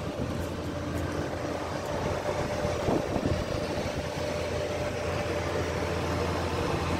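Steady machine hum with a constant mid-pitched tone over a low drone, heard inside a parked helicopter's cabin.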